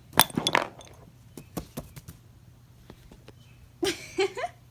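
A quick clatter of small hard clicks and knocks, most of them in the first second, thinning to a few light ticks, then a short pitched voice cry about four seconds in.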